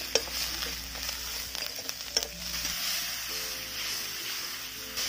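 Masala frying in oil in a metal kadai, with a steady sizzle. A metal spatula scrapes and clicks against the pan, sharply just after the start and several times around two seconds in.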